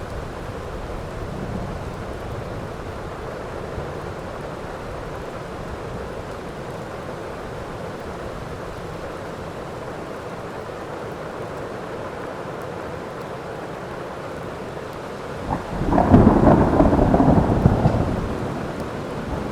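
Steady heavy rain in a thunderstorm. Near the end a loud thunderclap breaks in suddenly and rumbles for about three seconds before fading.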